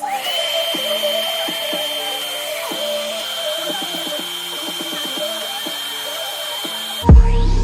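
Handheld hair dryer running: a steady high whine over an airy hiss, starting with a quick rise in pitch as the motor spins up, with music playing underneath. Near the end it cuts off and louder music with a heavy beat takes over.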